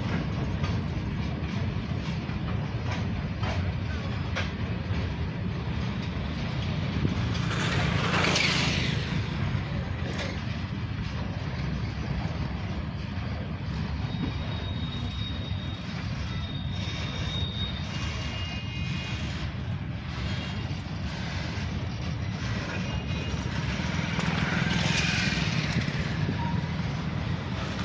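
Covered wagons of a long freight train rolling past at steady speed: a continuous low rumble, with wheels clicking over rail joints in the first few seconds.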